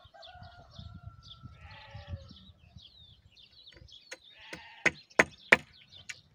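Claw hammer driving a nail into a wooden frame beam: four quick sharp blows about a third of a second apart in the last second and a half, the loudest sound here. Before that, sheep bleat and small birds chirp in the background.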